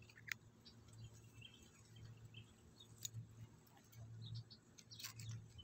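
Near silence: a faint low hum that swells and fades, with scattered faint high chirps and a few sharp clicks.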